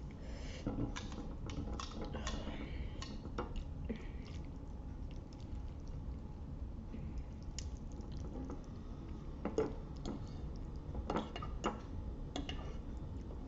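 Close-up wet mouth sounds of eating spaghetti: irregular small smacks, clicks and squelches of chewing, busiest near the start and again in the last few seconds.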